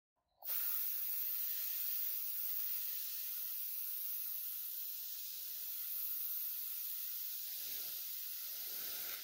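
Airbrush spraying paint: a steady hiss of air and atomised paint that starts about half a second in.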